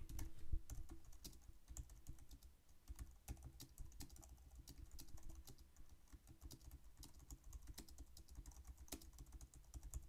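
Faint, irregular clicking of typing on a computer keyboard. The keys are picked up from just behind a budget cardioid USB condenser microphone, the Alvoxcon A700.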